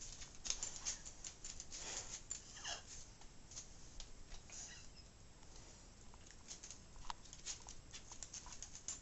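Faint, irregular clicks and taps, with one short falling sound about two seconds in.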